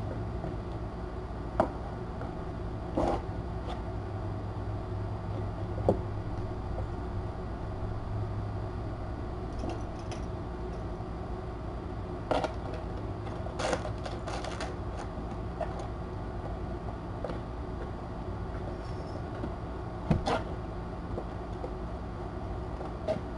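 Kittens playing: scattered soft thumps and knocks as they pounce and wrestle against cardboard and a scratching post, over a steady low room hum. The knocks come singly, with a quick run of several just past the middle.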